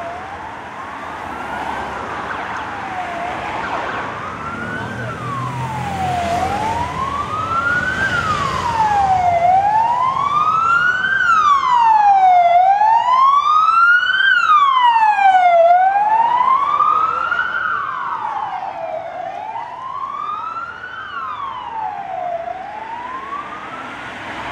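Wailing siren of a police escort rising and falling about every three seconds. It grows louder toward the middle as the race convoy passes, then fades. A second siren overlaps it briefly near the middle, over the sound of passing vehicle engines.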